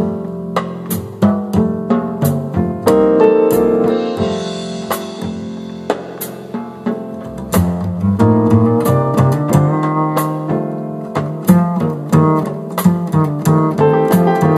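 Instrumental passage of a recorded song played back through a hi-fi system: keyboard chords over a drum-kit beat with sharp, regular hits.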